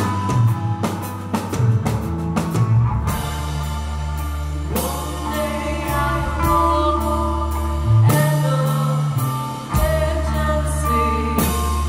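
Live psychedelic rock band playing, with drums, bass, electric guitar and keyboard; a woman's singing voice comes in about five seconds in.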